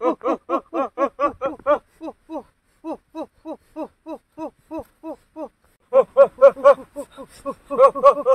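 Animal calling: a long run of short pitched notes, each rising then falling. They come about six a second, slow to about two a second, pause briefly, then speed up again about six seconds in.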